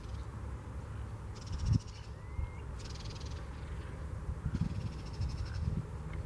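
Wind rumbling on the microphone, with one sharp thump a little under two seconds in. Three short, high, rasping buzzes come about a second and a half apart, the last one longest.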